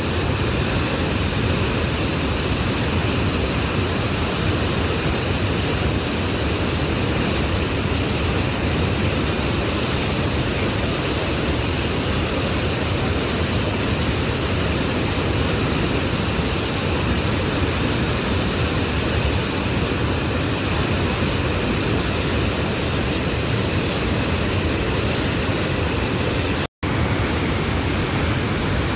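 Waterfall's steady, loud rush of falling water. It cuts out for an instant near the end and resumes.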